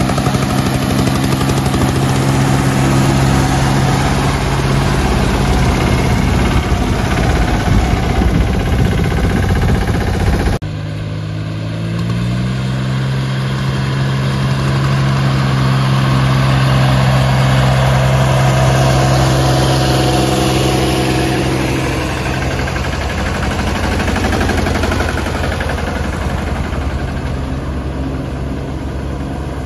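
Compact tractor diesel engines running under load: an engine revs up and runs hard while towing a stuck mini tractor out of a ditch. After a sudden cut about ten seconds in, a tractor engine revs up again, runs steadily, and fades as it drives away.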